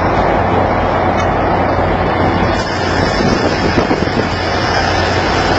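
Steady low drone of marine machinery with a constant hum, under a wash of wind noise.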